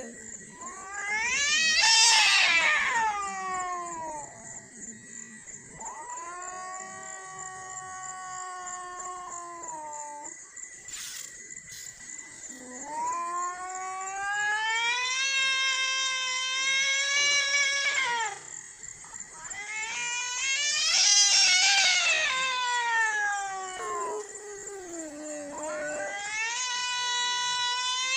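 Two cats caterwauling at each other in a standoff: about five long drawn-out yowls, each lasting a few seconds, some rising and falling in pitch and one held level, the threatening cry cats make before a fight.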